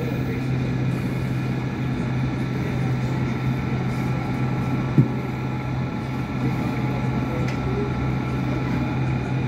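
Hong Kong Light Rail Phase I car running between stops, heard from inside: a steady low hum over wheel and track rumble, with one sharp click about five seconds in.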